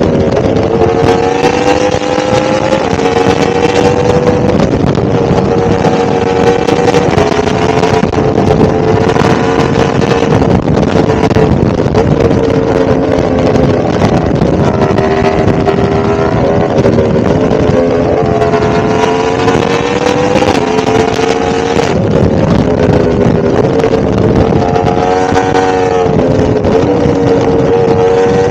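1000cc motorcycle engine running steadily under way, its pitch drifting gently up and down with small throttle changes, with a couple of brief rises and dips.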